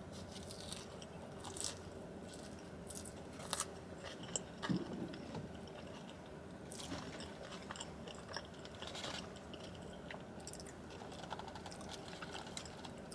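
Close-up chewing of animal style french fries: soft mouth sounds with irregular crisp crunches.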